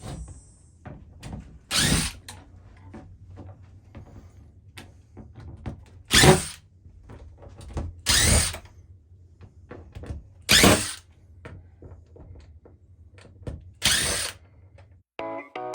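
Power drill run in five short bursts of about half a second each, with small knocks and clicks in between.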